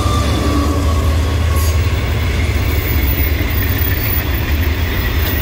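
GE-built GEA-class diesel-electric locomotive passing close with its engine running, then a string of loaded container wagons rolling by on the rails with a steady low rumble.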